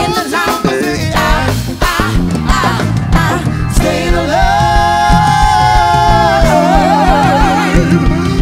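Live funk band playing, with electric guitar, bass and organ under the vocals. Quick sung runs give way about four seconds in to long held notes with vibrato.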